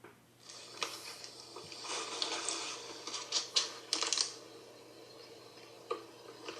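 Rustling and clicking close to the microphone, loudest during the first four seconds, with a couple of soft clicks near the end.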